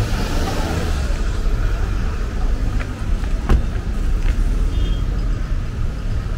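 Road traffic on a wet street: car engines running close by with steady tyre noise over the wet road, and a single sharp click about halfway through.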